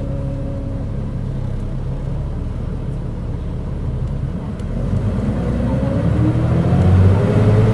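Mitsubishi Fuso KC-MP617K city bus heard from inside, running with a steady low rumble and then, from about halfway through, pulling harder, with a whine rising in pitch over the engine. The bus sounds far from the model's usual engine note, which the uploader takes for a sign of some fault or trouble.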